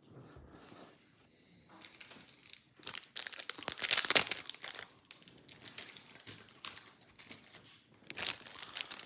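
Crinkling and rustling of wrapping being handled, in irregular bursts, loudest around four seconds in.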